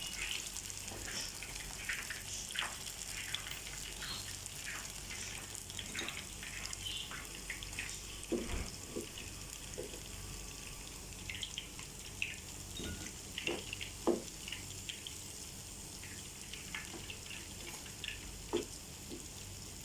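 Chicken nuggets frying: a steady sizzle with many scattered pops and crackles.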